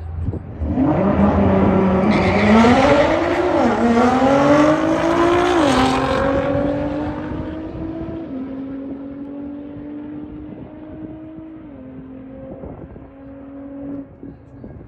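A car engine accelerating hard from a launch, its pitch climbing and then dropping at each upshift through several gears. It is loudest in the first few seconds and fades as the car pulls away into the distance.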